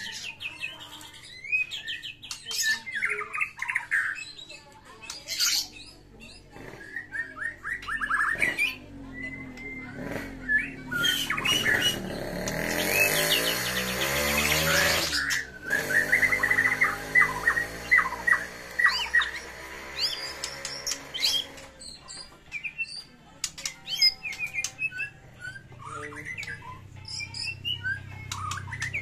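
A caged white-rumped shama singing in fighting form: a long run of varied whistles, chatters and quick falling notes. About halfway through there is a loud, harsh, noisy passage lasting several seconds.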